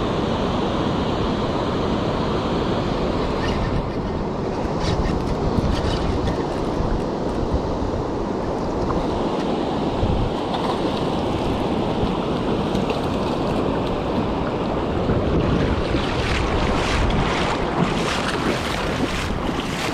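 Steady rushing of a high-running river's water, mixed with wind buffeting the microphone. Scattered short clicks come a few seconds in and again near the end.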